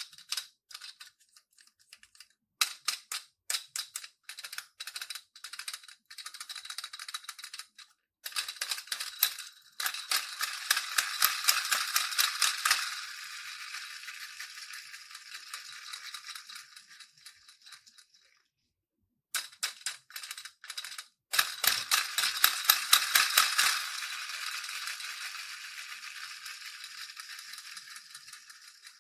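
Slime being worked by hand, giving dense runs of small crackling clicks and pops in several stretches with brief pauses.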